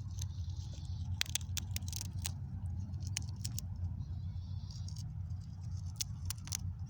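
Ground squirrel cracking peanut shells with its teeth: irregular sharp cracks and crunching, in a quick run about a second in and again near the end, over a steady low rumble.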